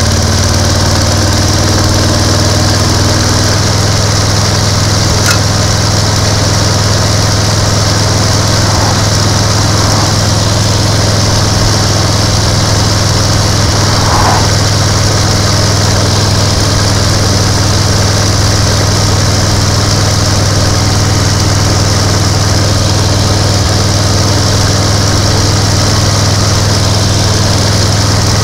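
1930 BSA 770 cc V-twin motorcycle engine running steadily at cruising speed on the road.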